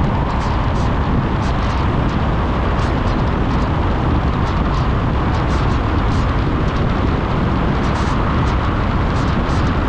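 Car driving on an unpaved rural road: steady engine and tyre rumble with frequent short clicks and ticks scattered through it.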